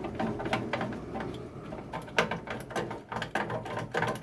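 Flat-head screwdriver working loose the mounting screw of a microwave oven's high-voltage capacitor, with a run of irregular small metal clicks and knocks.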